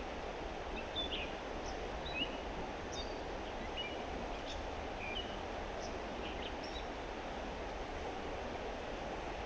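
Steady rush of flowing creek water, with short high bird chirps scattered through most of it.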